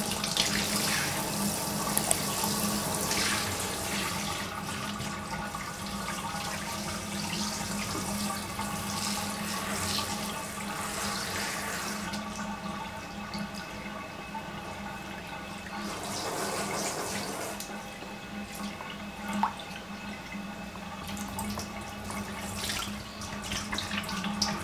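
Handheld shower sprayer running, its spray splashing onto a small dog's wet fur and the plastic bathtub: a steady hiss of water, with a steady low hum underneath. The spray eases off about halfway through, comes back in a short surge, then runs on more quietly.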